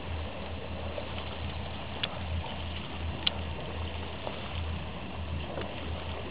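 Steady low rumble with the wash of water and wind at sea aboard a small boat, with two faint clicks about two and three seconds in.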